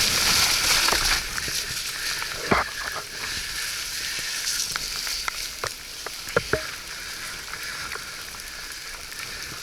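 Steady wet hiss of a ride through rain and mud, with a few sharp clicks and knocks from the bike around the middle.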